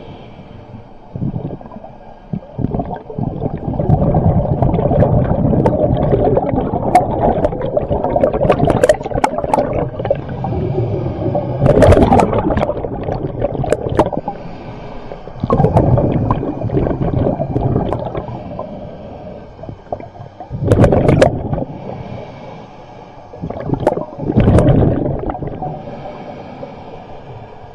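Underwater recording of a scuba diver's exhaled bubbles gurgling past the camera. The bubbles come in bursts: one long stretch of several seconds, then shorter ones, with sharp crackles among them.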